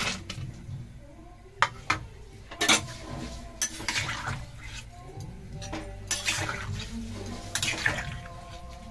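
Metal ladle knocking and scraping against a steel karahi as fried fish pieces are settled into a simmering bean-and-potato curry: a scattered series of sharp clinks and knocks.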